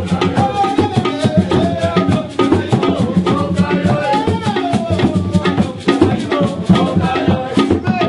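Mgbè society music: a hand drum and other percussion play a dense, fast rhythm, with voices singing over it.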